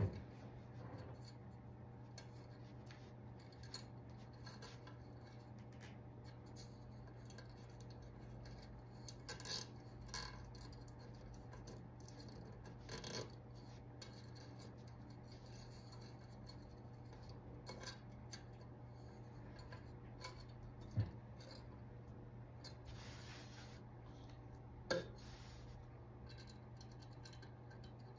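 Quiet handling noise of plastic zip ties and broom bristle bundles being threaded through holes in a metal cooking pot: soft rubbing and rasping with a handful of short, sharp clicks scattered through. A steady low hum runs underneath.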